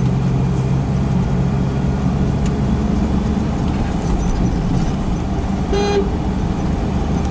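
Car engine and tyre noise heard from inside the cabin while driving, a steady low drone. About six seconds in, a car horn gives one short toot.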